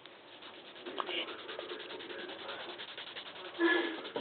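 A small plastic Lego piece being scraped back and forth against a thin metal blade, in quick, repeated rasping strokes. A brief louder sound comes near the end.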